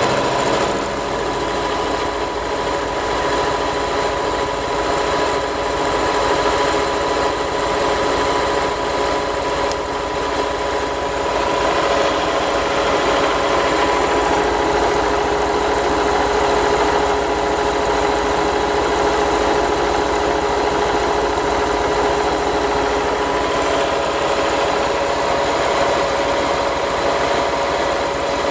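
Milling machine cutting metal: the spindle turns at about 800 rpm and the cutter takes a deep cut, giving a steady, loud grinding whine with a constant pitch over the machine's hum.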